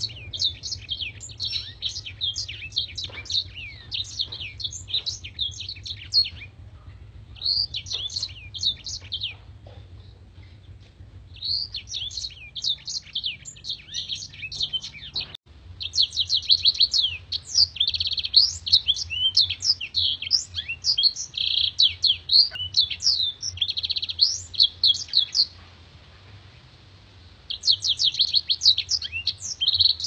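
Black-throated canary (blackthroat) singing long, rapid, high twittering phrases, five runs of song with short pauses between them, over a faint low hum.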